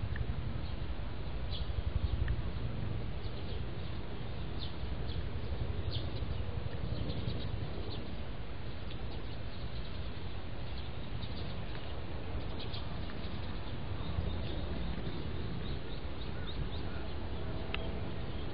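Outdoor ambience: short, high bird chirps come and go throughout over a steady low rumble.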